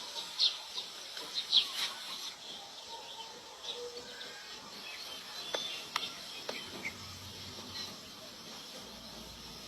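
Scattered short, high chirping calls from an animal, loudest and most frequent in the first two seconds, then sparser chirps and clicks over a steady outdoor background hiss.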